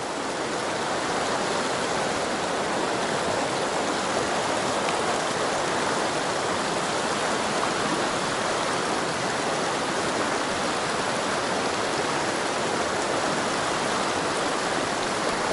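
Mountain stream rushing over rocks and through a riffle: a steady, even rush of water.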